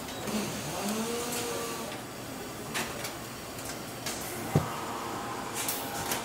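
Car assembly line noise: a steady machinery hum with a brief rising whine about half a second in, a few short hisses, and one sharp knock about four and a half seconds in.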